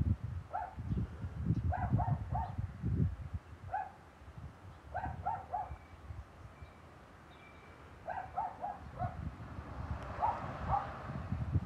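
A dog barking repeatedly, in quick runs of two to four barks a second or two apart.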